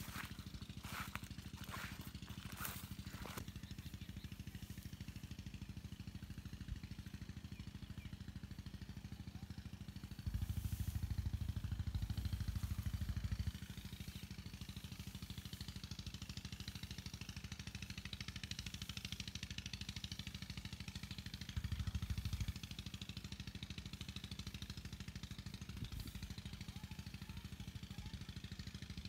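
An engine running steadily with a low, even rumble. The rumble swells louder for about three seconds near the middle and again briefly later on.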